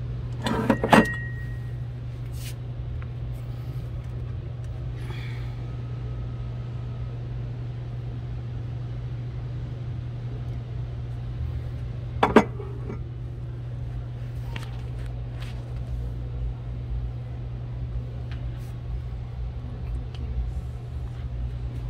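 Porcelain teapot clinking as it is handled: a sharp china clink with a short ring about a second in, and another clink near the middle. A steady low hum runs underneath.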